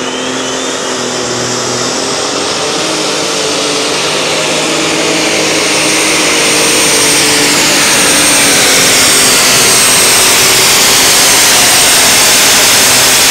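Super stock pulling tractor's engine running hard under full load down the track, growing louder over the first half and then holding. A steady high whistle sits over the engine through the second half.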